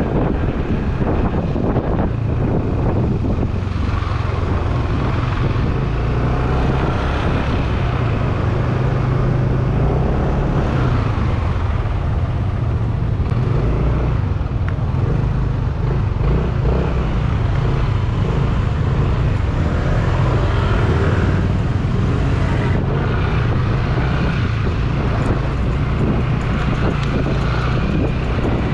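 Motorcycle running steadily through city traffic: a constant low engine drone under wind rushing over the microphone.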